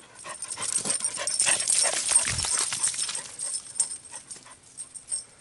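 A dog scrambling over loose rocks on a shoreline: clattering stones and scraping paws, loudest about two seconds in, then thinning out.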